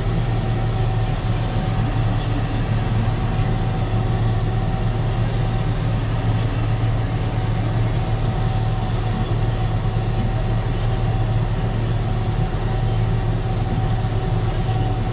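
Steady diesel engine drone inside the cab of a Perkins-engined machine running close behind a Claas Jaguar 890 forage harvester in maize, with a thin steady whine above the drone.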